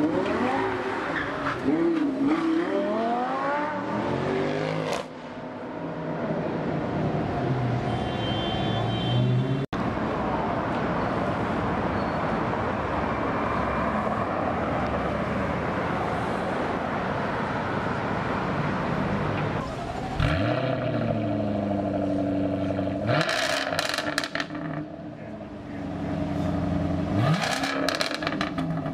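A run of supercar engine sounds. First a sports car accelerates with its engine pitch rising and falling through the gears, then a Bugatti Veyron drives past in traffic. Near the end a parked Jaguar F-Type's engine is revved twice, each rev rising sharply, with crackles from its quad exhausts.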